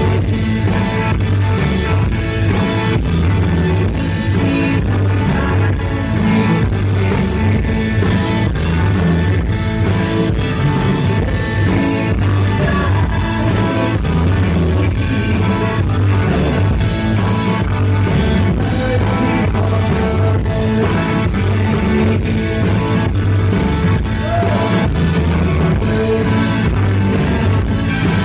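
Rock band playing a song live on stage: electric guitar, bass and drums, with singing, in a steady driving groove.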